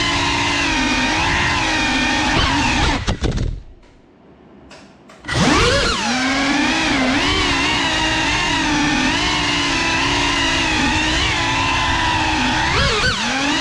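Small Geprc FPV drone's motors and propellers whining, the pitch wavering up and down with the throttle. About three seconds in the sound falls away to near quiet for nearly two seconds, then comes back sharply as the throttle is opened again.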